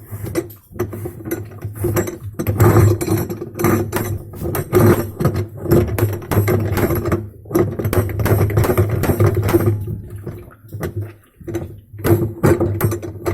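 Spanner clinking and knocking on the washing machine gearbox's check nut as it is tightened, with a steady low hum underneath.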